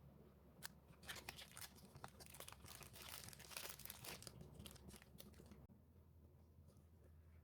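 Paper being worked by hand close up: a dense run of crackling, tearing and crinkling from about a second in until a little past halfway, then dropping suddenly to faint rustles.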